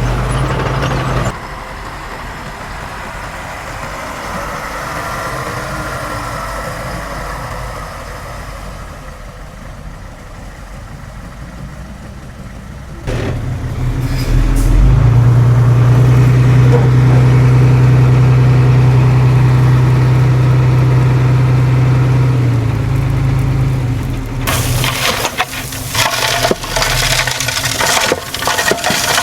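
Diesel engines of heavy earthmoving machinery running, with abrupt changes in level at about a second in and again around 13 s. A loud, steady hum runs from about 15 s to 22 s. From about 24 s a dense crackling and clattering joins the engine.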